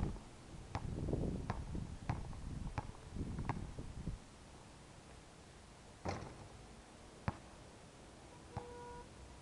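A basketball dribbled on an outdoor court: five bounces, one about every 0.7 s. Then, after the shot, three separate knocks of the ball on the court and basket, the last with a short ringing tone near the end.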